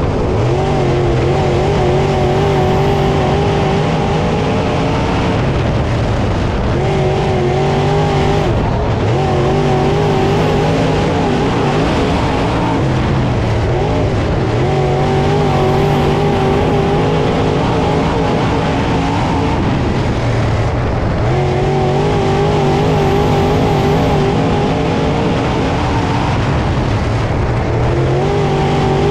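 Dirt late model race car's Chevrolet 604 crate V8 at racing speed on a dirt oval. The engine note holds steady for several seconds at a time and drops away between, over and over as the car laps.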